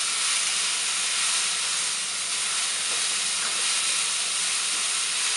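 Sliced mushrooms and onions sizzling steadily in hot oil in a non-stick kadai as they sauté, stirred with a wooden spatula.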